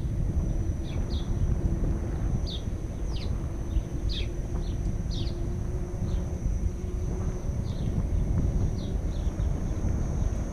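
Wind buffeting the microphone over the rumble of a Kingsong KS14 electric unicycle's tyre rolling over paving. Scattered short, high chirps of small birds sound throughout.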